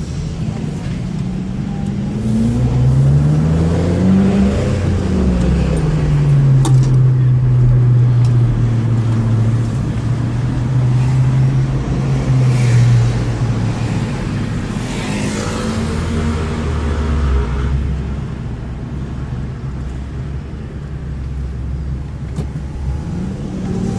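BMW M6 with an Akrapovic aftermarket exhaust accelerating: its engine note climbs for about two seconds, drops, then holds a steady drone for several seconds before easing off, and climbs again near the end.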